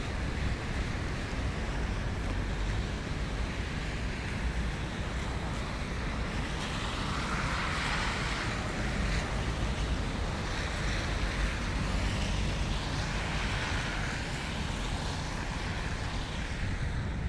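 Street traffic: passing vehicles swell and fade several times over a steady low rumble.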